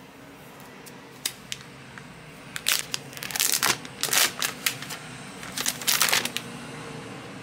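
Clear plastic shrink-wrap being peeled and pulled off a phone box, crinkling and crackling. A couple of light clicks come about a second in, then a dense run of crackly bursts for about four seconds.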